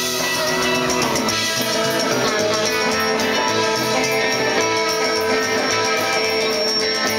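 Rockabilly band playing live, with electric guitars over an upright double bass and a steady beat.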